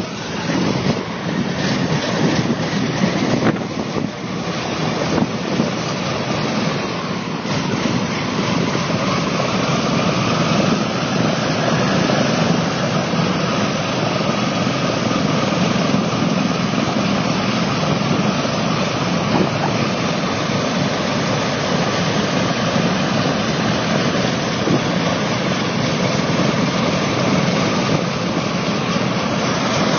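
Engines of a 1955 twin-propeller airliner running on the ramp just after the pre-start checklist, a loud steady noise. It is uneven for the first few seconds, then settles, with a faint tone rising slightly about eight seconds in.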